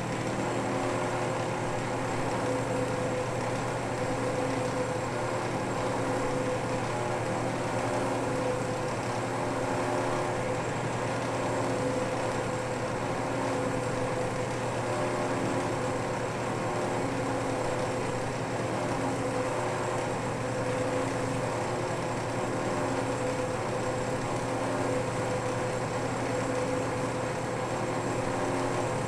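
South Bend 10K metal lathe running steadily while its cutting tool puts decorative grooves into a brass rod handle. A steady hum with a few fainter tones that fade in and out.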